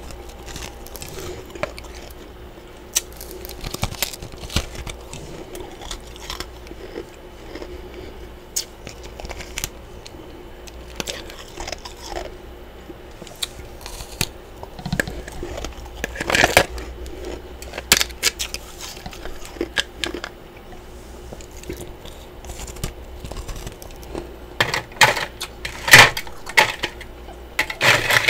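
Close-miked chewing and crunching of chunks of freezer frost: irregular crisp crunches, with louder bursts about sixteen seconds in and again near the end.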